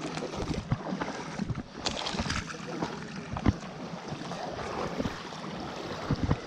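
Wind on the microphone and water lapping against a small wooden boat, with scattered knocks, the sharpest about three and a half seconds in.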